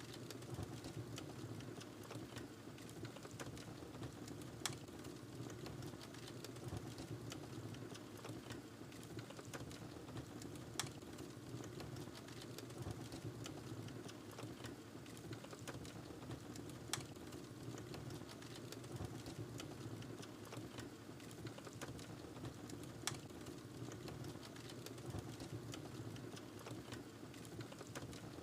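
Wood fire burning in a fireplace: a steady low rush of flames with many small crackles, and a louder pop about every six seconds.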